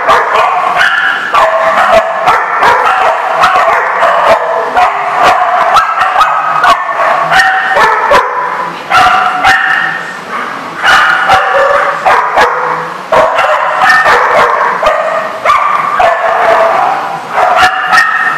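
Samoyed yipping and barking in play, one high call after another almost without a pause.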